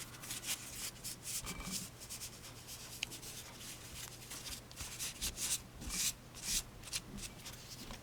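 Cloth rubbing over a steel folding-knife blade in short, irregular wiping strokes, over a faint steady low hum.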